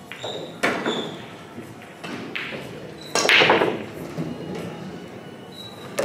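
A nine-ball break shot: a sharp cue strike about three seconds in, followed at once by the loudest part, the rack clattering apart as the balls scatter and knock into each other and the cushions. Single sharp ball clicks come before and after it.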